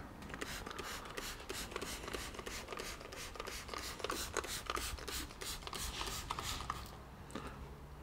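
Hand trigger spray bottle squirting anti-corrosion preparation onto a bare steel car rear subframe: a quick series of short spray bursts with trigger clicks, a few a second, easing off near the end.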